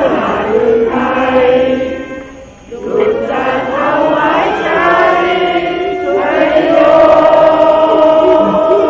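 Voices chanting in long, drawn-out notes, with a brief pause about two and a half seconds in.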